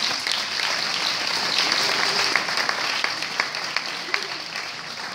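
Audience applauding, tapering off toward the end.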